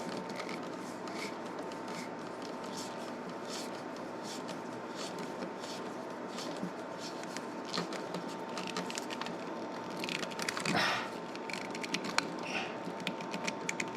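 Small clicks, ticks and scraping of a screwdriver turning down the side terminal screw of an electrical outlet onto a hooked copper wire, with a faint steady tone underneath and one louder rustle about three-quarters of the way through.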